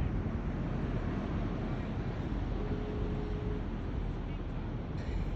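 Steady wind rumble buffeting the microphone, with a faint brief tone about a second long near the middle.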